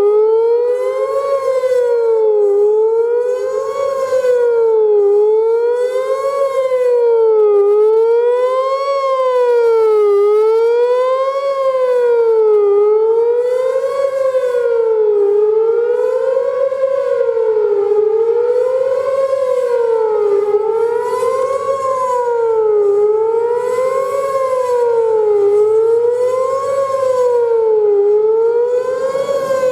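Whelen WPS-4004 electronic outdoor warning siren sounding its fast wail: a loud, buzzy tone sweeping up and down in pitch, one rise and fall about every two seconds.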